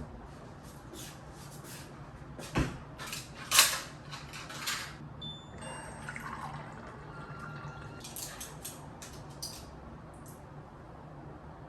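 Light clicking and tapping of kitchenware being handled, with two louder knocks about two and a half and three and a half seconds in.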